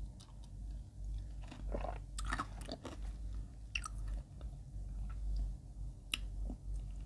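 Close-up chewing of soft bread with a spread that has a grainy texture: scattered small wet mouth clicks and faint crunches.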